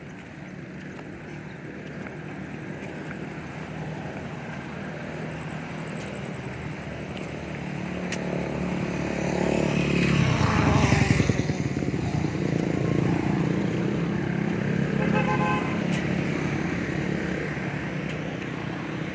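An engine running steadily, swelling louder for a few seconds about ten seconds in and then settling back.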